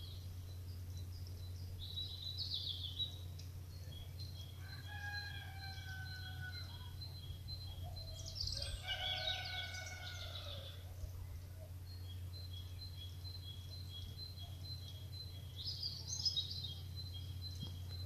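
Outdoor birdsong: small birds chirping in short bursts and a high call repeating evenly over and over. A rooster crows twice, a few seconds apart. A steady low hum runs underneath throughout.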